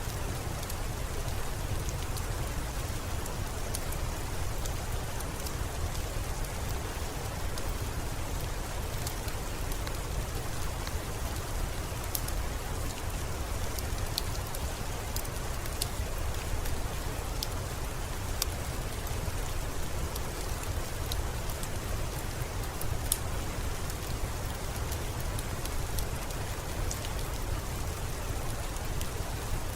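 Steady rain, an even hiss with a low rumble, with scattered sharp clicks of single drops striking.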